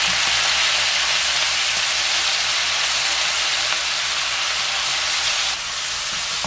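Soy sauce sizzling hard as it hits hot pork slices in a nonstick wok: a dense, steady sizzle that eases off a little about five and a half seconds in.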